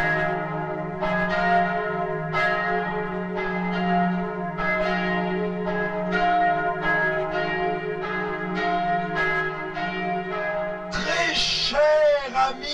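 Two swinging church bells pealing, their strokes coming unevenly about once a second and each ringing on into the next. Near the end a sound with a swooping, wavering pitch cuts in over them.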